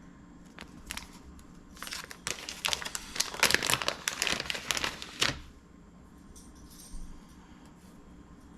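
Plastic packaging of soft-plastic stick baits crinkling as it is handled: a few light crackles, then about three seconds of dense crinkling that stops suddenly.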